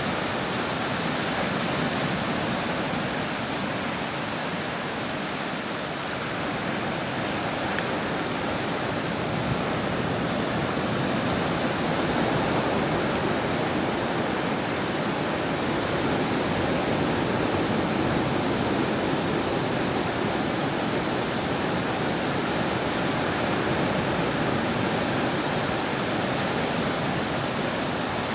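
Steady rushing wash of the sea on the shore, an even noise without distinct breaking swells.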